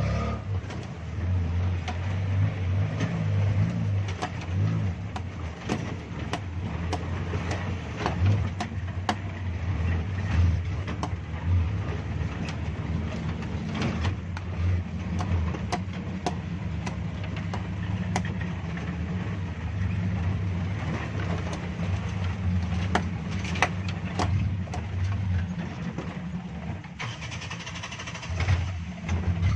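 Suzuki Jimny 4x4's engine running at low revs as it crawls over river rocks, with frequent sharp knocks and clatter over the steady drone.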